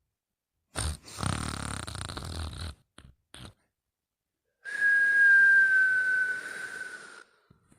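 Snoring in sleep: a rough, fluttering snore of about two seconds, then after a pause a longer breath with a thin high whistle that drifts slightly lower before fading.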